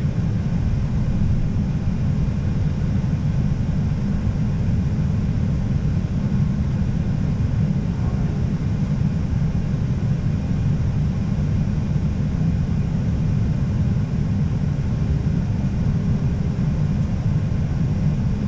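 Airbus A320 flight-deck noise: a steady low rumble that holds at one level throughout.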